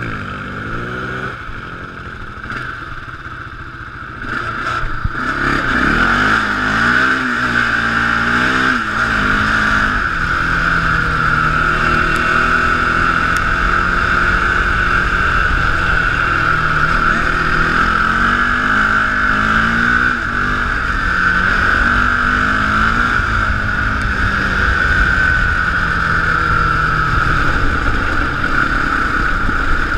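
A single-cylinder sport ATV engine revving and accelerating, its pitch rising and falling through the gears, heard close from the quad itself. It gets louder about five seconds in and then holds at high revs.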